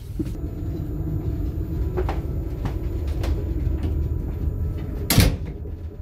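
Steady low rumble of a passenger train carriage, with a few light clicks and one loud knock about five seconds in: a door in the carriage banging shut.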